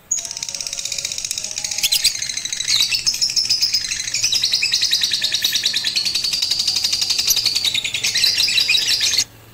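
Lovebird's long, continuous, very rapid chattering trill, the drawn-out 'ngekek' song that lovebird training aims for. It starts suddenly, runs unbroken for about nine seconds and cuts off abruptly near the end.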